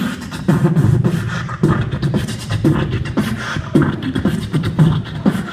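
Beatboxing into a handheld microphone and amplified through a PA: a steady beat of low kick sounds about twice a second, with sharp click and snare sounds between them.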